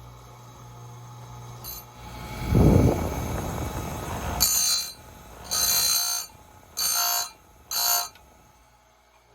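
Bench chainsaw-chain grinder: a loud rush of noise about two seconds in, then four short, high-pitched grinding passes as the wheel is brought down on the cutter teeth, the last three about a second apart.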